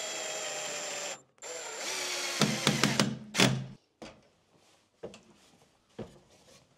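Cordless drill driver running in two bursts of about a second and a half each, driving screws to fix the feet onto the bottom of a wooden loft ladder, the second burst followed by a few sharp knocks. After that, only scattered light knocks of the wooden ladder being handled.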